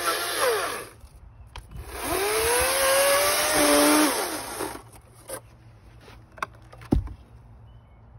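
Battery electric chainsaw (EGO 16-inch) cutting through a maple log. Its whine falls away about a second in, rises again about two seconds in and drops in pitch under load as the chain bites, then winds down just past halfway. A few knocks and one sharp thump follow near the end.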